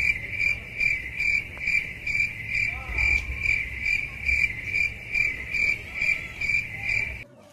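Cricket chirping in an even rhythm, a little over two chirps a second, which stops abruptly near the end.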